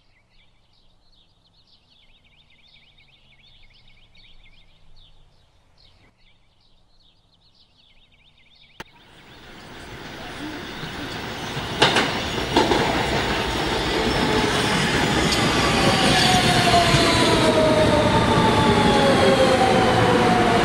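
A New York City Subway train, an R160 on the N line, pulling into a station: after about nine seconds of faint high chirping a click brings in loud, building rumble and rail noise with a couple of sharp knocks. Its traction motors give a falling whine as it slows to a stop.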